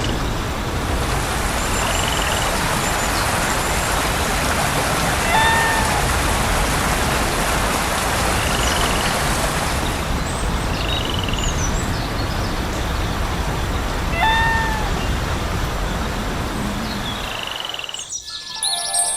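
A steady, noisy mechanical running sound with a few short squeaky chirps over it. Near the end it cuts off and birdsong with music begins.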